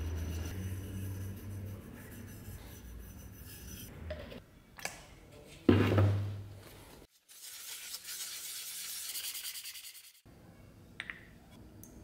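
Small hand tool rubbing and scraping across a brass plate, with a single loud thump about six seconds in and a stretch of thin hiss after it.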